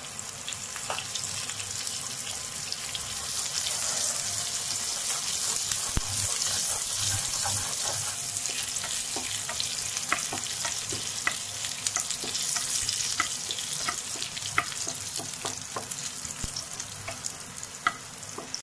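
Cumin seeds, asafoetida and chopped green chillies sizzling in ghee in a nonstick frying pan: a tadka being tempered. A steady sizzle with scattered crackles and pops, stirred with a wooden spatula.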